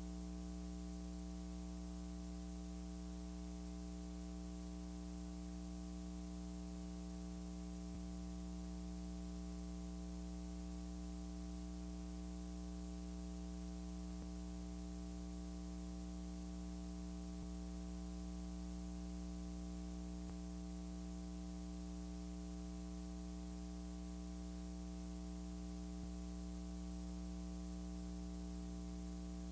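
Steady electrical mains hum with a layer of hiss and no other sound: the party sound has cut out, leaving only hum in the audio.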